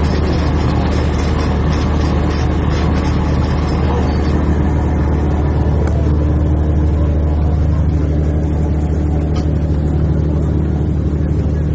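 Purse seine fishing boat's engine running steadily, a constant low drone.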